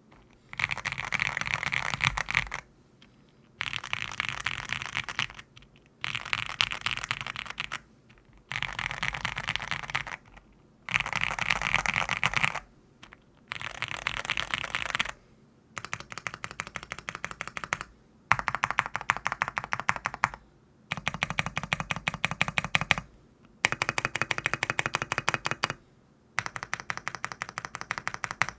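Mechanical keyboards, a Rainy75 and a Hi75 fitted with Cherry MX2A Black linear switches, being typed on. The typing comes in about eleven bursts of rapid keystrokes, each roughly two seconds long, with short pauses between them.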